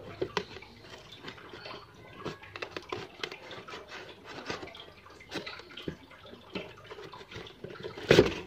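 Scissors snipping and cutting through the tape and cardboard of a parcel box, with irregular clicks, crinkling and scraping of cardboard. A louder burst of rustling comes near the end as the box is pulled open.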